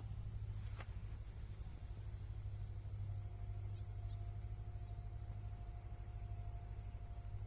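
Insects chirring in one steady, high, unbroken tone that sets in about a second and a half in, over a steady low rumble. A single click just under a second in.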